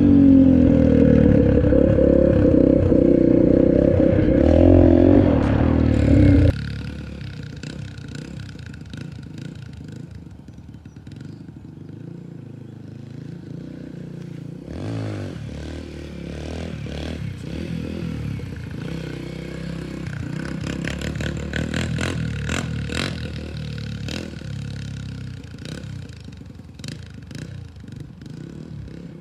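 Dirt bike engine running loud and close for about six seconds, then a sudden cut to a dirt bike engine heard far off, swelling and easing with the throttle, with scattered clicks near the microphone in the second half.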